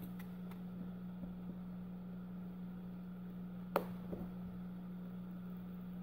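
Faint handling clicks from plastic pry cards and a pry spatula against a phone's edge, with one sharp click a little under four seconds in, over a steady low hum.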